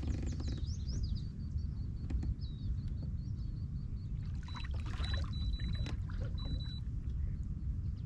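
Steady low wind rumble and water noise on the microphone aboard a fishing kayak, with a bird's short high chirps in the first few seconds.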